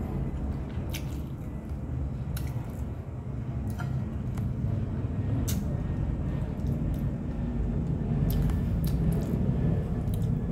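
A person chewing fried chicken and rice close to the microphone, with wet mouth clicks and smacks every second or two over a steady low rumble.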